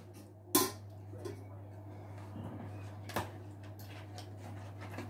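A few scattered kitchen knocks while making lasagne: a sharp knock about half a second in, as of a container set down on the worktop, then lighter clicks of a utensil in a foil baking tray, over a steady low hum.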